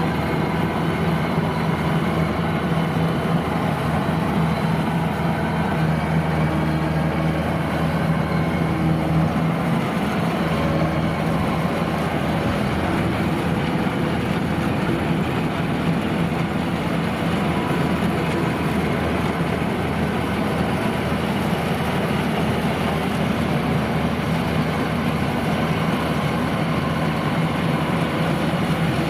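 Kubota DC-93 rice combine harvester running steadily under load, its diesel engine humming with a constant low drone and the machinery rumbling along with it.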